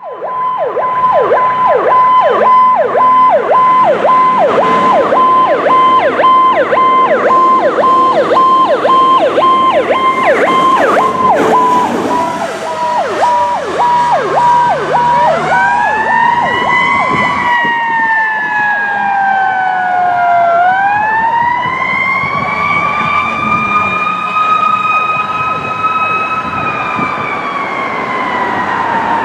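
Fire engine siren sounding. For about the first fifteen seconds it is a fast yelp, a rapid, repeated falling sweep over a steady high tone. It then changes to a slow wail that rises and falls in long glides.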